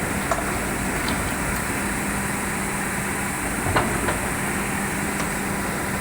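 Excavator's diesel engine running steadily with a constant low hum, with two short knocks, the louder one a little past halfway.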